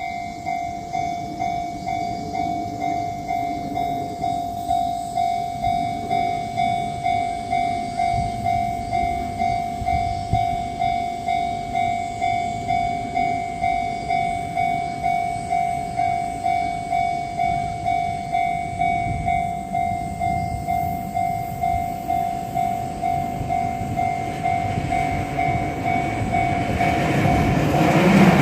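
Japanese railway level-crossing warning bell ringing its steady "kan-kan", an even beat of about one and a half strokes a second. A Keisei Matsudo Line train approaches over the last few seconds, its rumble growing loud near the end.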